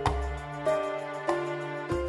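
Soft instrumental background music, with a new chord struck about every two-thirds of a second over a sustained bass.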